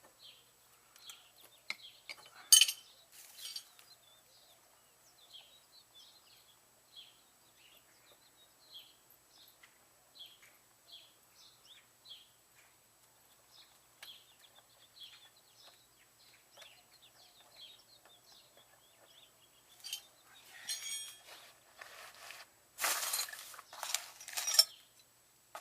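Metal wrenches clinking and clattering as they are handled and sorted: one sharp clink about two and a half seconds in, then bursts of clattering near the end. Faint bird chirps in between.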